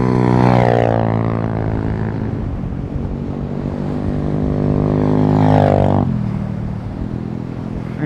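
Dirt bike engines running on sand as the bikes ride past. The engine note drops a little as one bike moves off, then climbs and grows louder before cutting off abruptly about six seconds in, leaving wind noise on the microphone.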